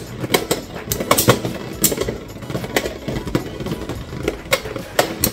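Two Beyblade X spinning tops whirring on a clear plastic stadium floor, with irregular sharp clacks as they strike each other and the stadium wall.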